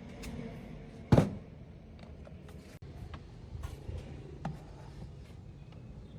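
Workshop handling of an old water pump's metal parts: one loud clank about a second in with a short ring, then a few lighter clicks and taps.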